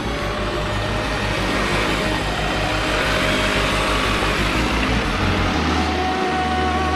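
A motor vehicle running, with a low, rapid rhythmic throb under a broad rushing noise; about five and a half seconds in the throb gives way to a steadier low drone.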